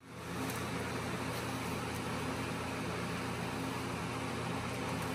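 Steady background hum with an even hiss, unchanging throughout, like a running machine.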